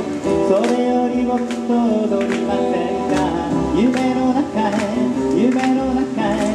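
Live acoustic band playing: acoustic guitar and ukulele strumming a steady beat over an upright bass, with a melody line that glides up and down in pitch.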